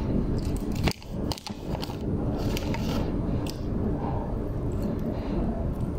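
Close-up eating sounds: a person chewing a flatbread wrap, with many short wet mouth clicks and smacks as fingers are sucked clean.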